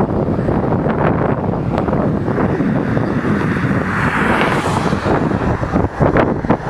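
Boeing P-8 Poseidon's twin CFM56 turbofans running through the landing, with the jet noise growing brighter about four seconds in as the aircraft touches down. Heavy wind buffeting on the microphone runs under it throughout.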